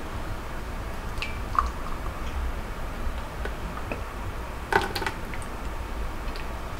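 Thick pumpkin soup being poured from a saucepan into a ceramic mug: a few light ticks and a short cluster of clinks about two-thirds through, over a low steady hum.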